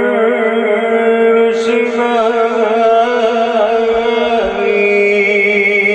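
A man singing a Sufi devotional kalaam, amplified through a PA. It starts on a long held note that breaks into wavering vocal ornaments, then settles on another held note near the end.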